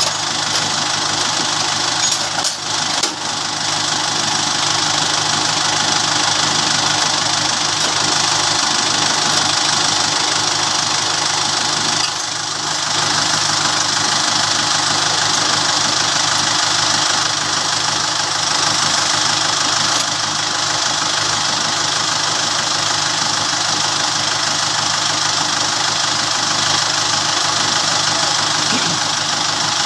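Tractor engine running steadily at an unchanging speed, with a brief dip in level a couple of seconds in and again about twelve seconds in.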